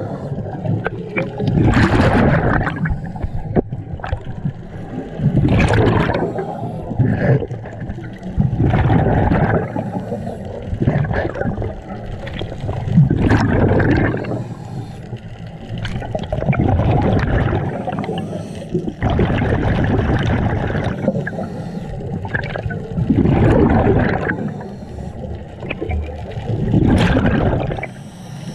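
Scuba diver's regulator underwater: exhaled air gurgling out as bubbles in surges about every three to four seconds, in time with the diver's breathing.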